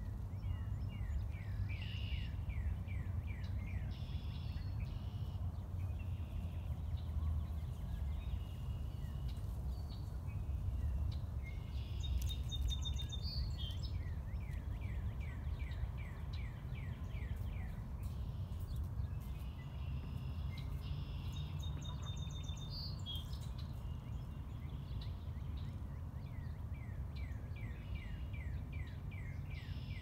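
Songbirds singing, with repeated fast runs of short downward-sweeping chirp notes and other song phrases coming and going, over a steady low background rumble.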